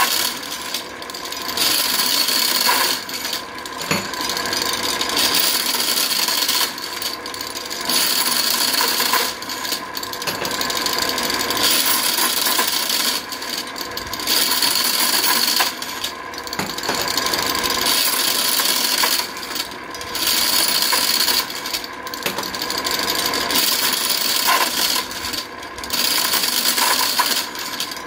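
Nut-threading assembly machine running: steel nuts clatter and clink down its track and are spun onto threaded rods. The steady metallic clatter breaks off briefly every two to three seconds.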